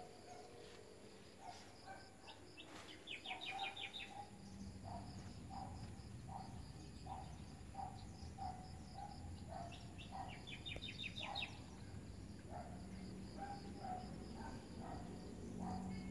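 Birds calling: one repeats a short low note over and over, roughly twice a second, and a quick high trill comes twice, about three seconds in and again about ten seconds in.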